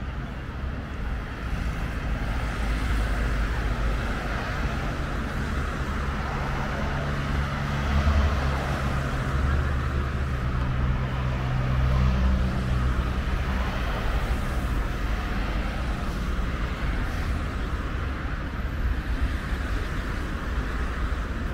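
Steady road traffic on a wide multi-lane avenue: a mix of car engine hum and tyre noise, swelling as vehicles pass close about 8 and 12 seconds in.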